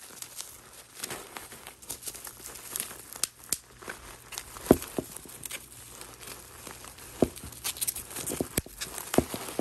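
Plastic bubble wrap crinkling and shredded-paper packing filler rustling as a wrapped bottle is handled and unwrapped in a cardboard box. The crackling is irregular, with a few sharper, louder cracks.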